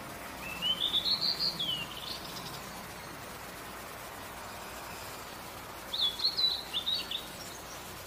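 Blue-and-white flycatcher singing: two short phrases of high, quickly changing notes about five seconds apart. The first phrase rises and then falls away; the second is a quick run of sharp notes.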